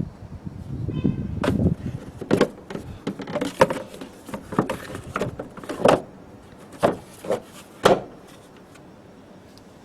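A series of sharp knocks and clicks, roughly a dozen spread over several seconds, from metal and plastic parts being handled in a car's battery area, after a short low rumble of handling noise.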